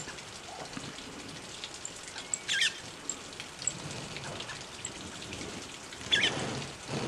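Steady outdoor hiss full of small crackles and ticks, with two short, high bird calls: one about two and a half seconds in and a louder one near the end.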